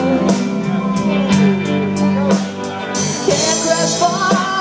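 Live band music with electric guitars and a steady beat of drum hits, played between sung lines of a song.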